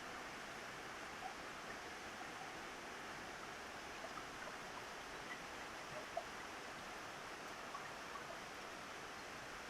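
Steady rain falling on a roof: an even hiss with scattered faint drop taps, and one sharper tap about six seconds in.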